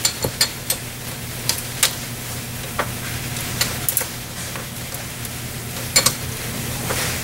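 Irregular sharp metal clicks and clinks of a wrench worked on the prop-shaft coupler bolts as they are loosened, over a steady low hum.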